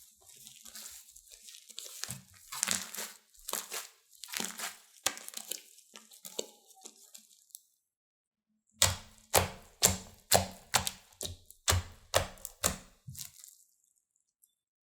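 Crunchy slime being squeezed and pressed by hand, crackling and popping. After a short silent break comes an even run of about ten sharp crackles, roughly two a second.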